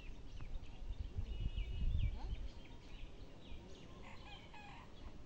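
Birds chirping and calling in short notes, with a longer, fuller bird call about four seconds in. A low rumble swells up between about one and two and a half seconds in and is the loudest part.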